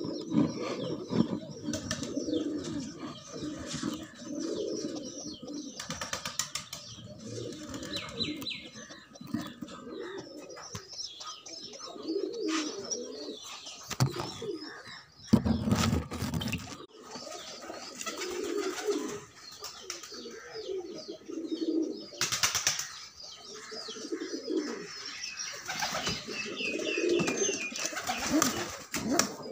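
Nesting domestic pigeons cooing over and over in low, rolling phrases, broken by a few brief loud bursts of rustling and knocking.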